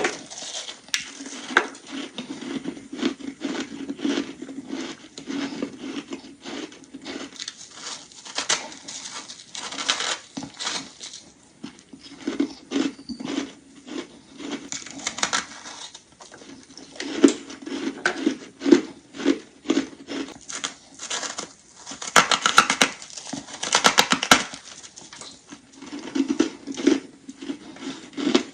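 Close-miked biting and chewing of crunchy thin ice chunks: rapid, irregular crunches and crackles, denser in a few runs, with brief pauses between bites.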